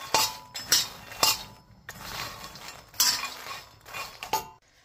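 Metal spoon stirring dry makhana (puffed lotus seeds) in a pan as they dry-roast, scraping against the pan with a few sharp clinks, about two a second at first and then more irregular.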